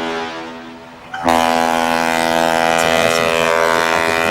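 Ship's horn: the tail of one long blast fading away over the first second, then a second long, steady blast starting abruptly about a second in and holding.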